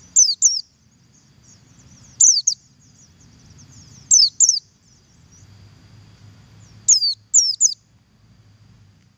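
Oriental white-eye (pleci buxtoni) giving its double call: sharp, high notes that slide downward, mostly in pairs, about every two seconds. Faint soft twittering runs between the calls.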